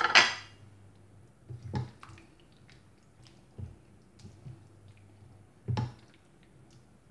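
Silicone spatula stirring artichokes through a thick sauce in a frying pan: soft wet squishing with a few scattered knocks against the pan. A brief loud rush right at the start as the last of the artichokes go in.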